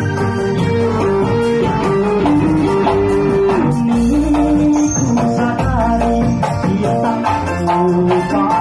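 Live amplified band music: an electronic keyboard plays a sustained melody over hand strokes on a kendang barrel drum, with a man singing into a microphone.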